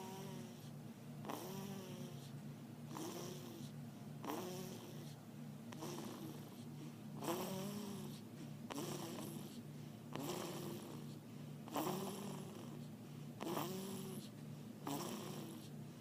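Snoring in a steady rhythm, one breath about every second and a half. Each breath carries a short tone that rises and falls, along with a hiss.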